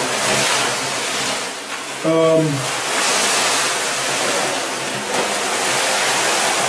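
Clumping wood-fibre cat litter poured from a large bag into an empty plastic litter tray: a steady hissing rush of granules pouring and spreading. A short voiced sound cuts in about two seconds in.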